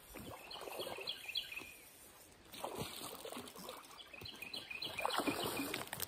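A songbird singing two short phrases of quick, repeated high chirps, about a second in and again near the end, over a rough noise that swells and fades.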